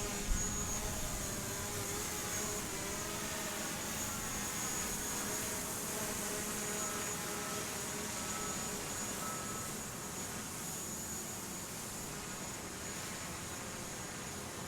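Construction-site machinery running steadily, with a steady high insect drone over it and a few short beeps about halfway through.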